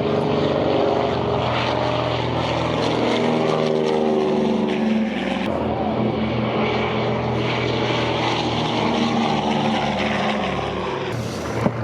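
Propeller-driven piston-engine aircraft flying past, the engine note steady and loud with a slowly drooping pitch, and a change in the sound about halfway through.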